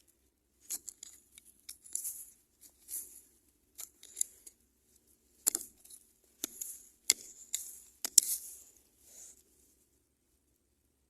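Irregular crackling, scraping and clicking of hands digging and rummaging through soil and debris in search of earthworms for bait, stopping near the end.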